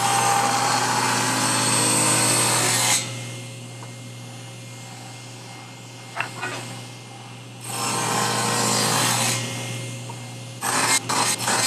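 Table saw running steadily while its blade cuts a groove in a wooden block: two loud cutting passes, the first at the start and the second about 8 seconds in, with the motor running quieter between them. Near the end comes a quick run of short rasping strokes.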